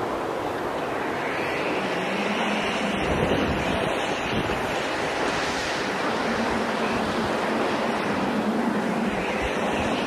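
Strong storm wind rushing without a break, swelling in gusts every few seconds, with low buffeting rumbles on the microphone.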